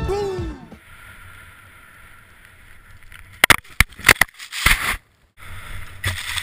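Music ends in the first second, then wind and ski hiss on a GoPro-type camera as a skier rides powder snow. About halfway through comes a burst of loud knocks and thumps as the skier crashes and the camera strikes the snow. The sound cuts out briefly, then the rush of snow spray continues while the skier tumbles.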